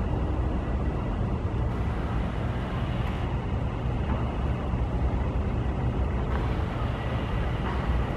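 Heavy demolition equipment's engine running steadily, a low rumble with no distinct impacts.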